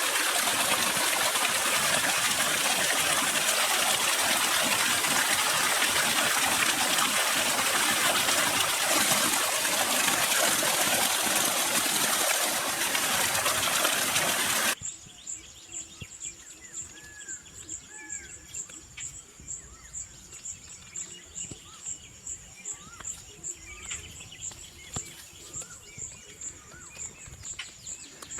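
Rushing water, a loud steady stream sound, that cuts off abruptly about halfway through. Then birds chirp over an insect's high pulsing call, repeating about twice a second.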